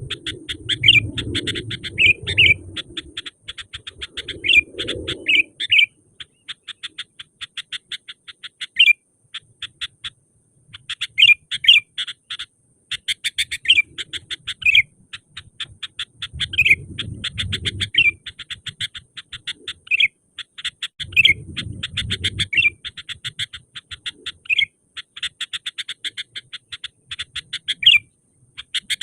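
Sooty-headed bulbul calls: fast trains of short chirps broken by louder sharp notes about every second, pausing briefly a few times. A low rumble comes and goes underneath.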